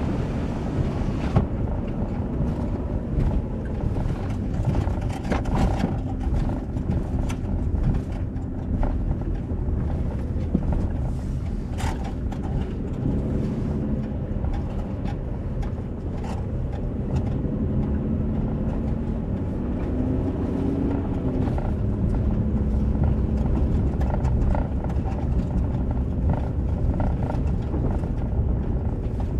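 Vehicle engine and road noise heard from inside the cab while driving: a steady low rumble with small rattles and clicks.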